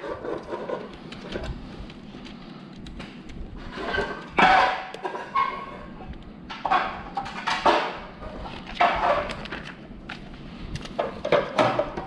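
Plastic LEGO Technic pieces clicking and clattering as they are handled and pressed together, in a run of scattered sharp clicks.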